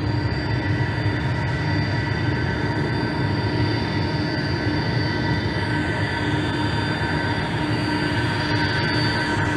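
Boeing 747-400 freighter's four jet engines at taxi power: a steady rushing noise with a whine held on several pitches.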